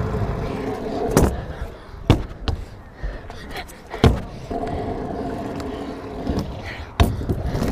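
Stunt scooter wheels rolling over rough asphalt with a steady rumble and hum, broken by four sharp knocks as the deck and wheels hit the ramps.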